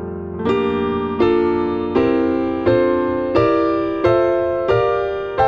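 Background music: piano chords struck one after another, about every 0.7 seconds, each ringing out and fading before the next.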